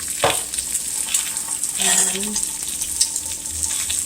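Eggs sizzling as they fry in a pan, a steady hiss, with a sharp knock about a quarter second in.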